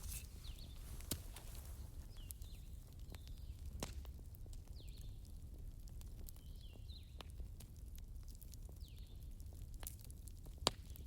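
Wood fire burning with a low rumble and scattered crackles, one sharp pop near the end the loudest. Faint short high chirps sound every second or two.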